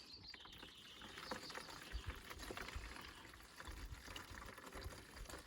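Faint pouring of liquid: sheep wormer drench being filled into a container, with a few soft low knocks of handling.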